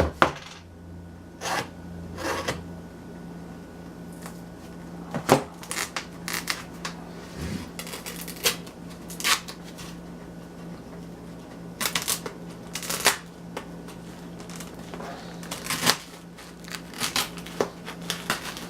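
A taped cardboard shipping package being handled and opened: irregular scrapes, rustles and tearing noises, over a steady low hum.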